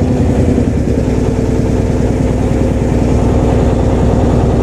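Boat engine running steadily under way: a steady hum over a rapid low pulsing.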